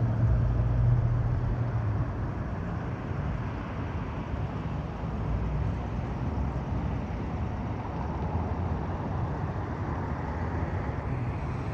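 Road traffic: a passing vehicle's low engine hum fades away in the first two seconds, then steady traffic noise from cars going by.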